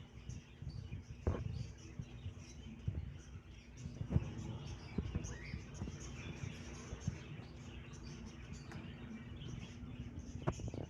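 Many small caged birds chirping, short high calls overlapping, with the odd knock.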